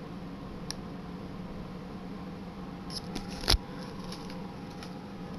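Light clicks on a laptop, one short click early and a quick run of clicks about three seconds in, ending in a sharper knock. Faint ticks follow, all over a steady low hum.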